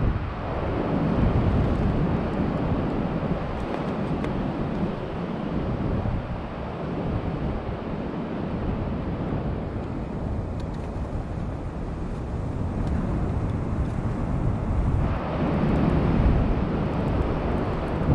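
Wind buffeting the microphone, swelling and easing in gusts and rising again near the end.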